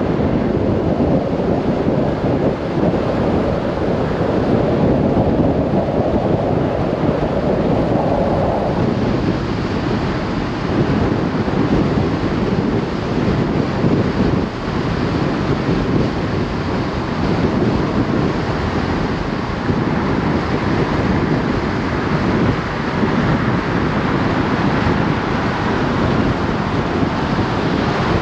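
Steady rushing wind on the microphone, mixed with tyre roar from a vehicle driving at road speed on a concrete road.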